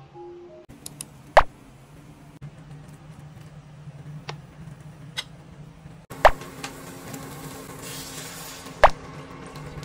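A metal spatula clinks and scrapes against a stainless steel pan while ground pork is stir-fried, giving a few sharp clinks over a steady low hum. Near the end, water is poured into the hot pan with a short hiss.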